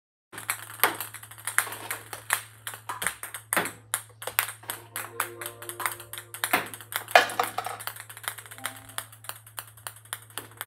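Many quick, irregular clicks of a table tennis ball striking paddle and table, over a steady low electrical hum.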